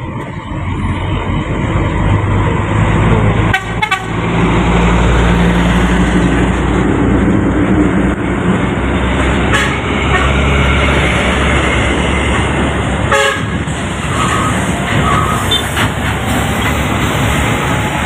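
Heavy diesel trucks, a Hino container tractor among them, running close by on the highway with a deep engine drone and tyre noise. Two short horn toots come near the end.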